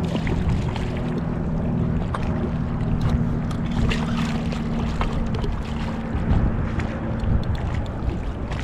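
A motor's steady low hum, with light scattered clicks and some wind noise over it; the hum dies away near the end.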